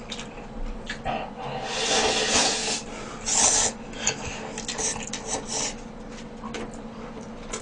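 A person slurping from a bowl held to the mouth: a long slurp about a second and a half in and a shorter one just after, then small wet mouth clicks while chewing.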